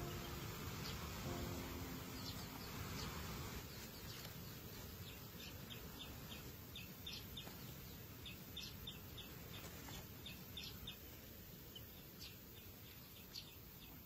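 A young chick peeping: short, high peeps that come in quick runs, thickest in the middle of the stretch, over a steady background hiss.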